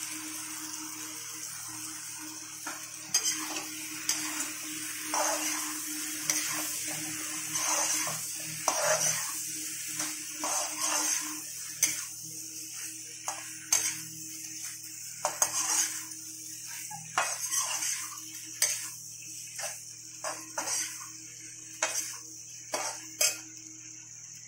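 Flat metal spatula stirring elbow macaroni in a kadai, scraping and clinking irregularly against the pan over a steady sizzle from the hot masala.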